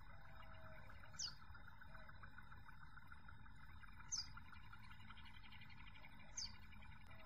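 A bird gives three short, high chirps, each falling quickly in pitch: one about a second in, one around four seconds, one near the end. Underneath is a faint, steady outdoor background of breeze.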